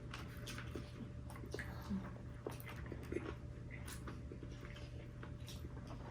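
A person chewing food, with faint scattered mouth clicks and smacks over a steady low hum.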